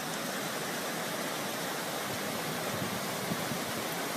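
Floodwater rushing steadily through a car park in a flash flood.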